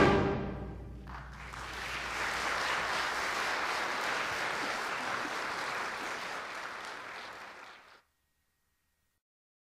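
A concert band's last chord dies away in the hall's reverberation, then an audience applauds for about seven seconds. The applause fades and cuts off abruptly near the end.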